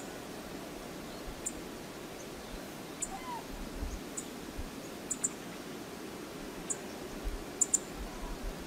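Steady outdoor wind-and-water noise from a windy shoreline with choppy water. About ten sharp, high-pitched ticks are scattered through it, two of them close together near the end.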